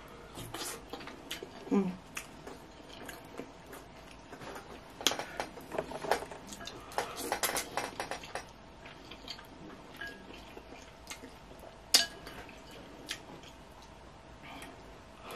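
Eating ramen: a fork and wooden spoon clink and scrape against a glass bowl, and noodles are slurped and chewed in a busy run of wet sounds around the middle. There is one sharp, loud clink about twelve seconds in.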